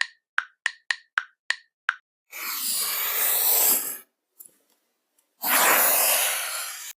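Editing sound effects played in a row: a quick run of short pops, about three or four a second, then two whoosh transitions, each lasting about a second and a half.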